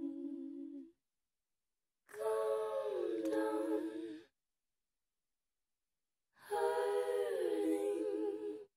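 Music: an unaccompanied, wordless hummed vocal line in long held notes that slide down in pitch. It comes in three phrases with a couple of seconds of complete silence between them.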